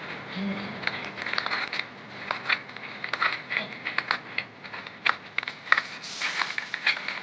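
Hands mixing and squeezing chopped leafy greens with spices and mustard oil in a bowl, giving irregular soft crinkles and clicks.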